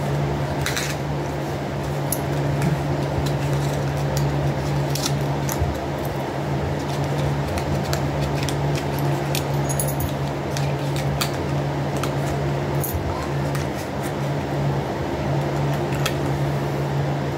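Electric fan running with a steady hum, under scattered light clicks and taps from small glitter containers being handled.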